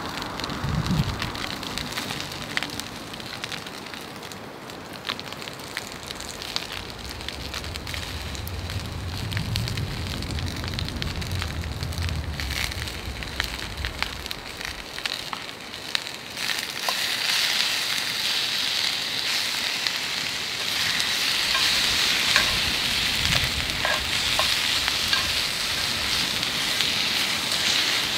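Keichan (marinated chicken) and cabbage sizzling in a hot Turk iron frying pan over a fire, with scattered crackles. The sizzle grows clearly louder a little past halfway.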